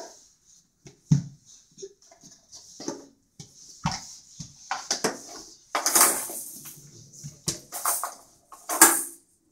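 Irregular knocks, taps and clatters on a bare wooden floor as a crawling baby's hands and knees hit the boards and small toys drop and knock about, the sharpest knock near the end.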